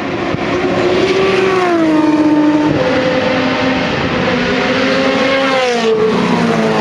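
Several race cars accelerating hard down a straight, engine notes climbing under full throttle and dropping with upshifts about two and a half seconds in and again near the end, a Ferrari 360 Challenge Stradale's V8 among them.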